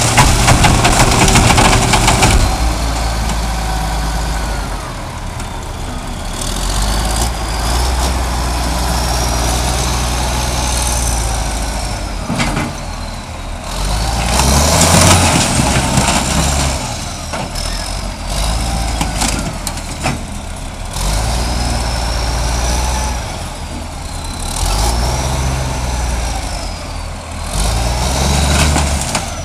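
Heavy engines of a car crusher and a wheel loader running and revving up and down, with a high whine that rises and falls several times and occasional clanks. The first two seconds carry the last loud crunching of the car being crushed.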